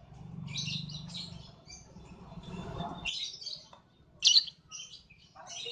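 Lovebird chattering in rapid, high, clustered chirps, with one sharp call about four seconds in that is much louder than the rest.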